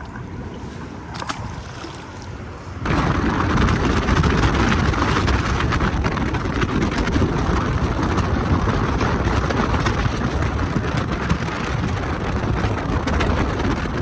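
Boat under way with heavy wind noise on the microphone, the noise jumping much louder about three seconds in and holding steady until it cuts off at the end.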